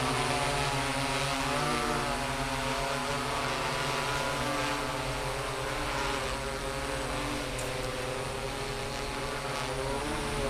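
DJI S800 hexacopter's six electric motors and propellers buzzing steadily as it hovers in GPS position hold. The pitch wavers slightly a couple of times as the motors make small corrections.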